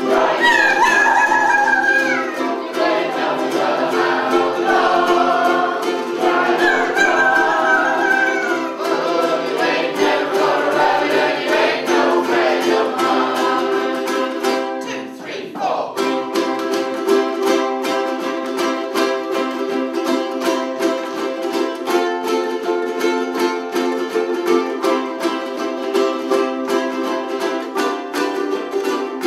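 A group of ukuleles strummed together while the players sing in unison. About halfway through the singing stops and the ukuleles carry on alone, strumming a steady rhythm.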